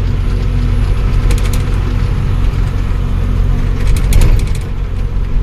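Ashok Leyland 1214 truck's diesel engine running at cruising speed with road noise, heard from inside the cab. A few short cab rattles come about a second in and again near four seconds.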